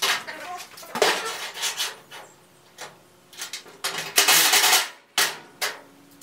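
Metal clinking and clattering as hinge hardware is handled against a steel garage-door section, with a short burst of a cordless drill driving the hinge screws a little after the middle.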